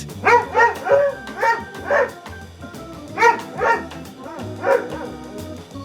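A dog barking in short, high yips, about eight in a few quick clusters, over background music.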